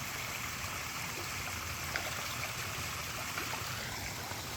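Pond waterfall splashing and trickling steadily, water spilling over rocks into a garden pond.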